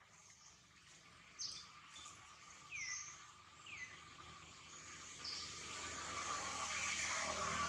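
Outdoor ambience: scattered short, high bird chirps over a steady insect hiss that grows louder toward the end.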